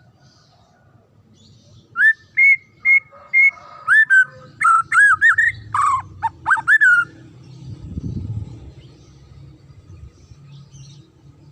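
White-rumped shama (murai batu) singing a quick run of loud, clear whistled notes, starting about two seconds in and lasting about five seconds, followed by a brief low rumble.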